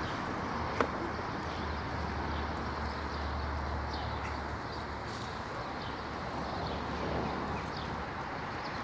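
Outdoor ambience: a steady low rumble and hiss, with faint short bird chirps scattered through and a single sharp click about a second in.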